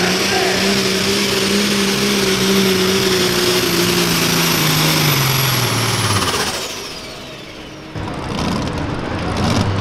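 Turbocharged diesel Pro Farm pulling tractor at full throttle dragging the sled, engine and high turbo whistle loud and steady. From about four seconds in the engine note steps down as it lugs under the growing weight. At about six and a half seconds the throttle comes off: the engine note falls and the turbo whistle winds down, and the noise rises again over the last two seconds.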